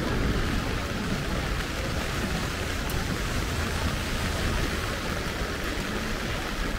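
Heavy rain falling steadily, a constant hiss.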